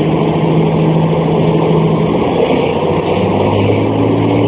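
Scania DSC9 turbocharged, intercooled six-cylinder diesel of a Scania F94 HB bus running under way, heard inside the passenger cabin. Its note drops a little past halfway through and then starts to climb again.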